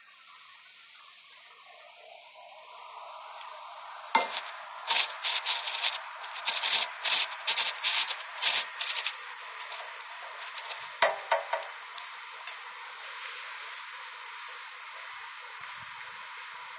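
Steady hiss of a quiet room, broken about four seconds in by a quick run of sharp clicks and taps lasting some five seconds, then a few scattered clicks before the hiss carries on alone.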